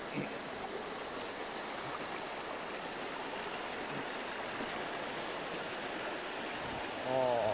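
Mountain stream rushing over boulders and small cascades, a steady wash of water. A short voice cuts in near the end.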